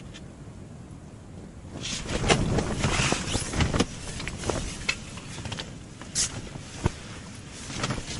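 Rustling with scattered clicks and knocks from someone moving about and handling gear, starting about two seconds in after a quiet start. It is busiest over the next two seconds, with a couple of sharper knocks later.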